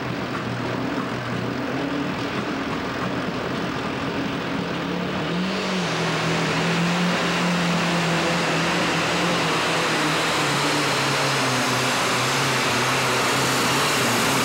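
Methanol-burning Minneapolis-Moline light super stock pulling tractor engine running at the line. About five and a half seconds in the throttle opens, and the engine runs loud and hard at full power as it pulls the sled.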